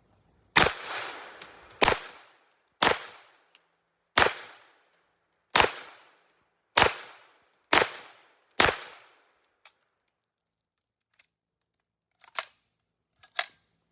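Eight gunshots from a 9mm MPA Defender pistol, a MAC-11 clone, fired one at a time at about one shot a second. Each report rings out and fades. Two fainter, sharper cracks follow near the end.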